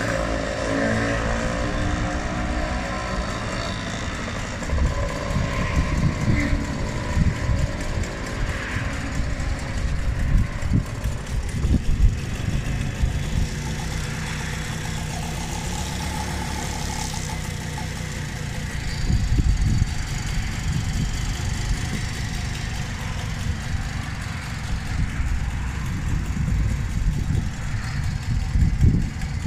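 Motor engine running steadily, with irregular low surges over it.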